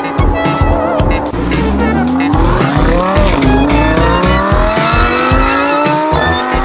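Electronic background music with a steady beat, mixed with race-car engine revving that rises in pitch twice, the second rise longer.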